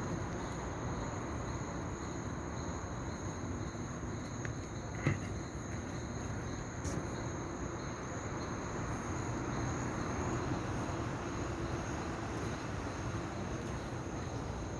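Steady background hum and rush with a continuous thin high-pitched whine, like insects or an electrical whine, and a single short click about five seconds in.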